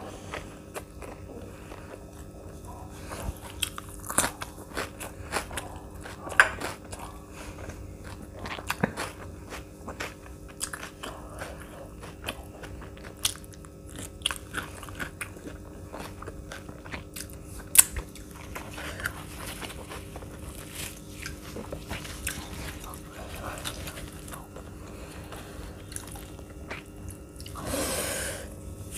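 Close-miked eating: biting and chewing with irregular wet mouth clicks and crunches, and a brief louder noisy swell near the end.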